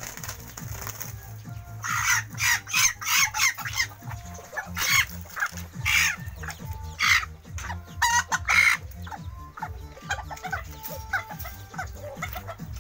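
Bantam chickens squawking loudly during a hen-and-rooster fight: a run of harsh calls, each under half a second, from about two seconds in to about nine. Softer clucks and short chirps follow near the end.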